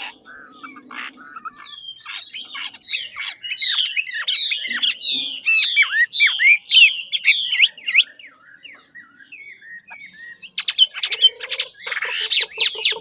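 Chinese hwamei (Garrulax canorus) singing: a fast run of repeated downslurred notes, about three a second, then after a short lull a harsher burst of rapid notes near the end.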